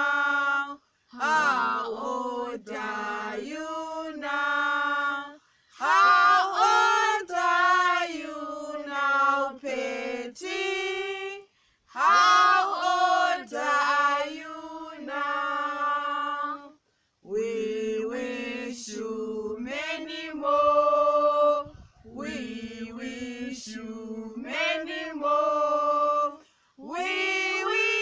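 Three female singers and a man singing together unaccompanied, in phrases of about five seconds with short pauses for breath between them.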